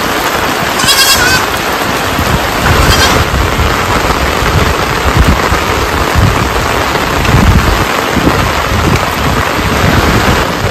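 Steady heavy rain with irregular low thuds, and a goat bleating twice, about one and three seconds in.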